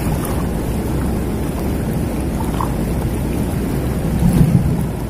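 Steady rushing of a swollen, muddy river in flood, mixed with low wind rumble on the microphone, swelling briefly about four seconds in.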